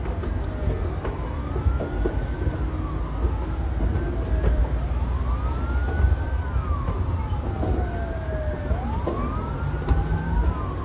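Two or more emergency-vehicle sirens wailing at once, each slowly rising and falling in pitch and overlapping the others, over a heavy low rumble.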